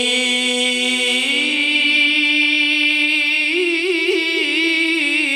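Male qari reciting the Quran in melodic tilawah style through a microphone and loudspeakers: one long held note that steps up in pitch about a second in, then wavering ornaments over the last couple of seconds.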